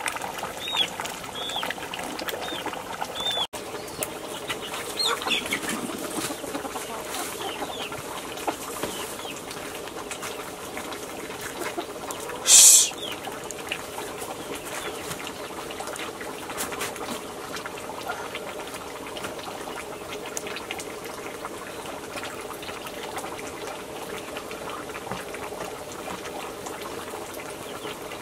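A pot of potato greens boiling over an open wood fire, with birds chirping around it in the first few seconds. About twelve seconds in there is one short, loud burst of noise.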